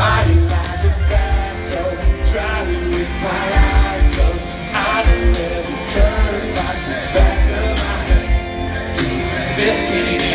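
Live country-pop concert music, a male singer with full band over a heavy, pounding bass beat, heard loud and boomy from inside the crowd through a phone's microphone.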